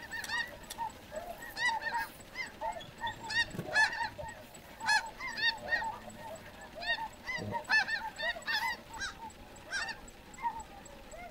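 A flock of snow geese calling: many short, high, overlapping honks.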